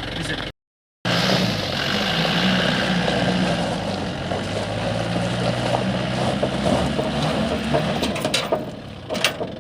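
Mahindra Bolero's diesel engine running at low revs while the vehicle is manoeuvred, its pitch stepping up and down with the throttle and dropping away near the end, where a few sharp clicks come through.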